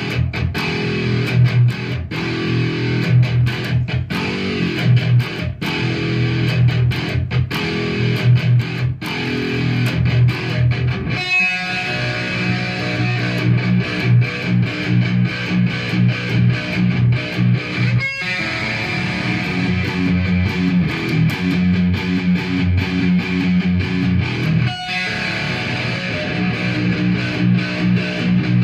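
Solo electric guitar playing a continuous picked passage of notes and chords, with three brief breaks between sections.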